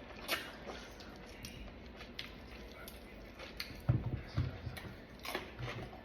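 A person chewing and eating fruit close to the microphone: scattered wet mouth clicks and smacks, with a few low thuds about four seconds in.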